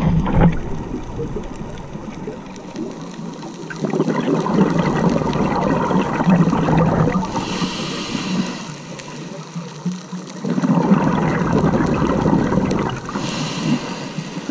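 Scuba diver breathing through a regulator, heard underwater: bubbly, gurgling exhalations lasting a few seconds, each followed by a short hiss of inhalation, repeating about every six seconds.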